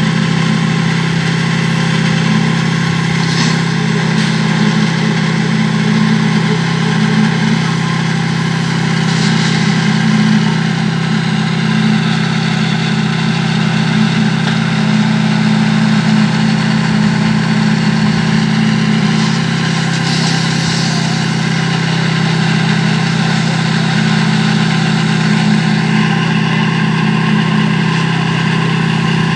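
Engine of a portable concrete mixer running steadily at constant speed.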